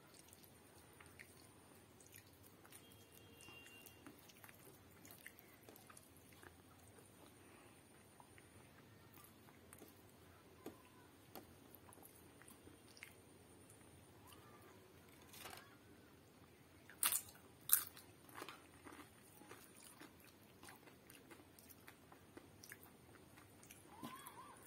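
Faint close-up eating sounds: wet chewing and mouth clicks of khichdi and curry eaten by hand, with a few sharp crunches of papad about two-thirds of the way in.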